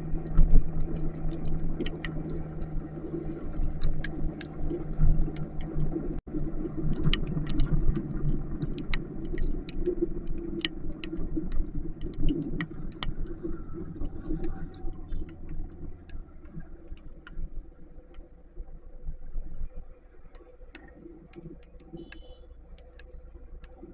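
Motorcycle engine running underway in heavy rain, with raindrops ticking sharply against the microphone. The engine note fades and the whole sound drops quieter about twenty seconds in, leaving a low steady hum, as the bike eases off or slows.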